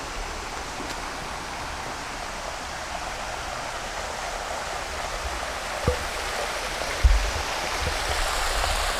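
Stream water rushing over rocks, a steady hiss that grows slightly louder, with two brief low thumps about six and seven seconds in.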